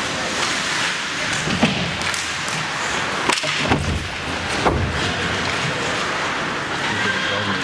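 Ice hockey play along the boards: about four sharp thuds and knocks, from puck, sticks and players striking the boards and glass, over the steady noise of the rink.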